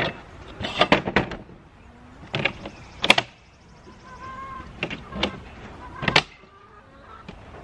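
Metal legs of a white plastic folding table being unfolded and clicked into place: a series of sharp clacks and rattles, loudest about three seconds in.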